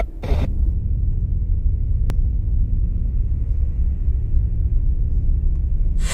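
Steady low rumble, with a short burst of noise at the start and a single sharp click about two seconds in.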